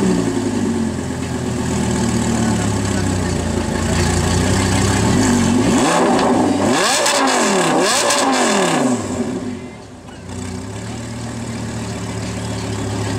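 Lamborghini Gallardo LP560-4's V10 idling through an Armytrix valvetronic exhaust with the valves open. It is blipped in several quick revs, each rising and falling in pitch, about halfway through. It then drops back to a steady idle.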